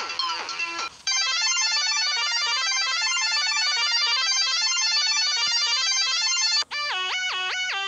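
Electronic music loops: a few sliding notes, then from about a second in a rapid, high ringing trill much like a telephone ringtone, and near the end a fast up-and-down arpeggio.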